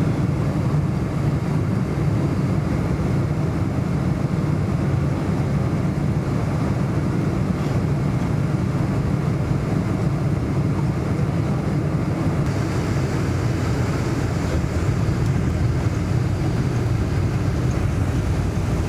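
Steady jet engine and airflow noise heard inside the cabin of a Boeing 747 airliner, a constant low rumble. A faint higher hiss joins it about two-thirds of the way through.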